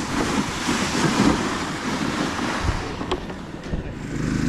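Wind gusting across the microphone in the open. Near the end a small engine comes in, running steadily.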